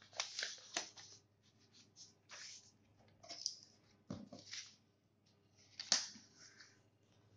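Sheets of paper being handled and smoothed flat by hand: soft, scattered rustles and scrapes. One sharper click comes about six seconds in, as a metal binder clip is fastened on the stack.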